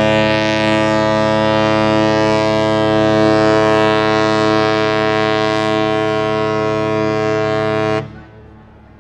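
Ship's horn sounding one long steady blast, a chord of many tones, as a ship puts out to sea; it stops sharply about a second before the end.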